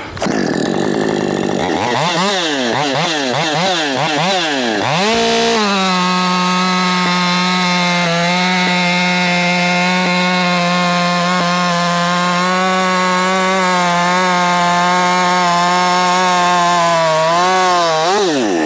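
Husqvarna 550 XP two-stroke chainsaw, fitted with an 8-pin .325 sprocket and full-chisel chain, revved up and down several times. It then runs at full throttle cutting through a large log, holding a steady, lower pitch under load for about twelve seconds. Near the end the pitch rises briefly and then drops as the throttle is released.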